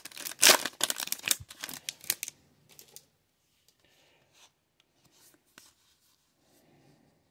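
Foil trading-card pack wrapper crinkling and tearing open for about two seconds. After that come a few faint rustles of the cards being handled, then near quiet.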